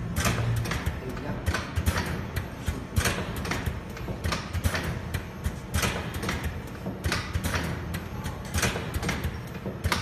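Single-head suppository filling and sealing machine running: a steady low hum with repeated sharp mechanical clacks from its indexing and sealing mechanisms, irregularly spaced at about one or two a second.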